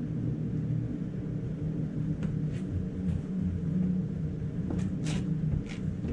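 A steady low mechanical hum with a few steady low tones in it. About five short clicks and scrapes of parts being handled come in the second half.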